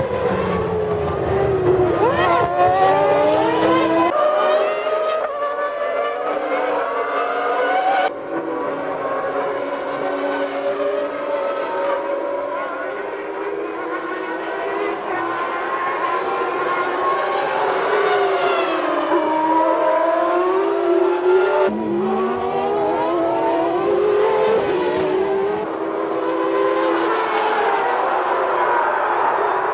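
Formula One cars of 1995 running at high revs, several at once, their engine notes rising and falling through gear changes and as they pass. The sound changes abruptly a few times.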